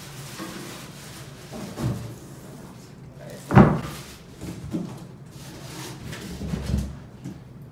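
Cardboard packaging and a plastic-wrapped machine being handled: a few dull knocks and one loud thud about three and a half seconds in, with plastic wrap rustling.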